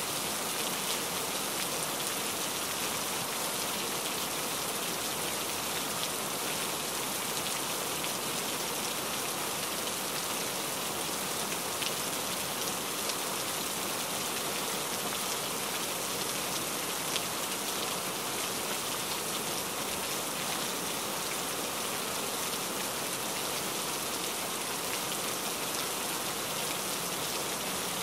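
Steady rain falling: an even hiss with scattered drops ticking through it.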